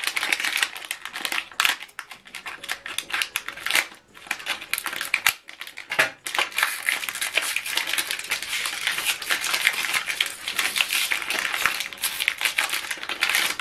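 Crinkling and rustling of an ink cartridge's sealed wrapper being cut with scissors and torn open by hand, a dense run of small crackles. It pauses briefly about five seconds in, then picks up again and grows thicker.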